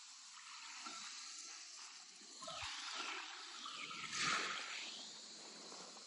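Small waves washing up a sandy beach and running back. One wash swells to its loudest about four seconds in, then fades to a hiss.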